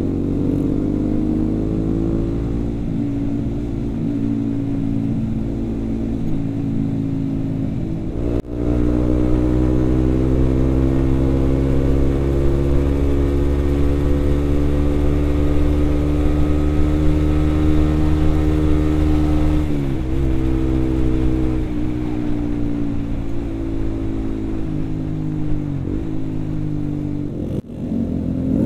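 Motorcycle engine pulling hard on the road, its note rising and falling with the revs over a rush of wind. There are short breaks at gear changes about eight seconds in, around twenty seconds, and near the end.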